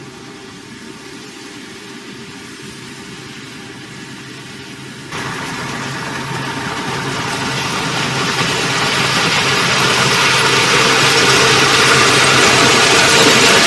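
Heavy construction machine's engine running steadily. About five seconds in it suddenly gets louder and harsher, then keeps building in loudness.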